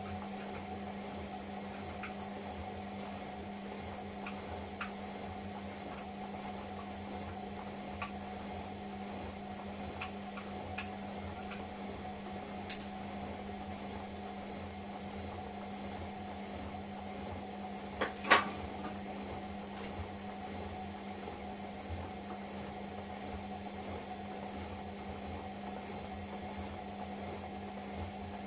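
Indesit washing machine running with a steady motor hum, with faint scattered ticks and a louder double knock about 18 seconds in.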